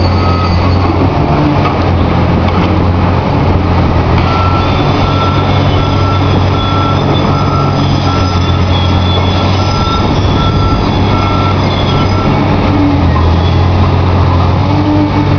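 Large hydraulic demolition excavator's diesel engine running hard and steady. From about four seconds in to about twelve seconds, a warning alarm beeps a little faster than once a second.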